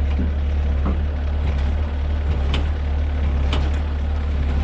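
Heavy recovery equipment's engine running steadily with a low hum while the winch is bumped, with two sharp clicks about halfway through and a second later.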